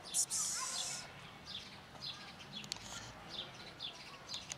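Small bird chirping over and over in short falling chirps, about two a second. A brief loud burst of hiss comes just after the start.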